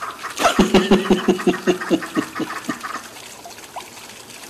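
A man's hearty laugh: a quick run of about a dozen pulses over two seconds, loud at first and trailing off. A faint hiss like trickling water lies underneath.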